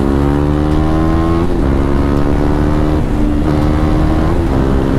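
KTM Duke 390's single-cylinder engine pulling hard under acceleration, its pitch rising. About one and a half seconds in the pitch drops sharply as it shifts up, then it runs fairly steady.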